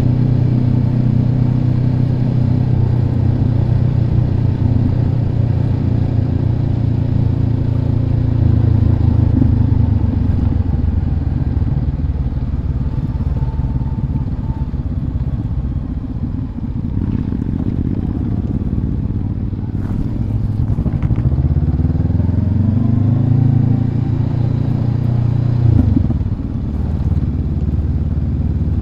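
Motorcycle engine running under way while riding. The engine note climbs for a few seconds about two-thirds of the way through, then drops suddenly near the end.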